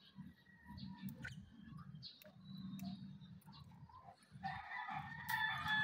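Faint short high chirps from caged lovebirds, then about four and a half seconds in a rooster crows once for about a second and a half.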